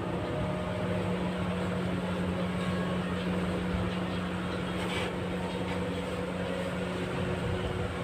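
Steady low drone of a running motor, even in level throughout.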